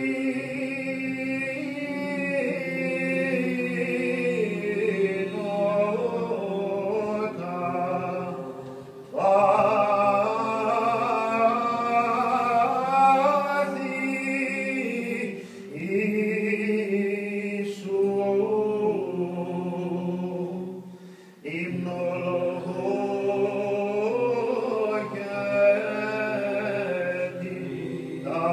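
Orthodox liturgical chant sung by a group of voices in unison, with a low note held steady beneath the moving melody. The singing pauses briefly between phrases about 9, 15 and 21 seconds in.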